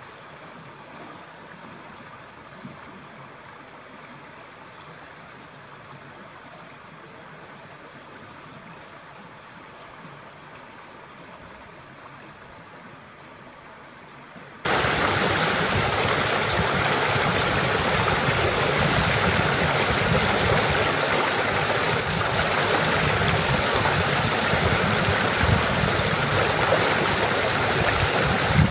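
A shallow stream flowing gently and steadily. About halfway through it cuts abruptly to much louder rushing water spilling over a low rock ledge in a small cascade.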